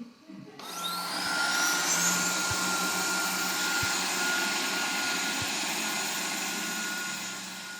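Kabum robot vacuum (an updated Liectroux C30B) starting its automatic cleaning run: about half a second in, its suction fan spins up with a quickly rising whine, then runs steadily with a steady high tone over a low hum. A few faint knocks sound under it.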